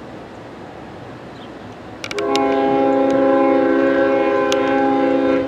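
CSX freight locomotive's air horn sounding one long blast of several notes together, starting about two seconds in and held for about three seconds, with a few sharp clicks just before it. The horn sounds fouled, by the railfan's ear.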